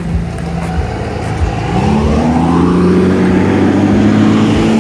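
A motor vehicle's engine nearby rises in pitch about two seconds in, then runs steadily at the higher pitch, getting a little louder.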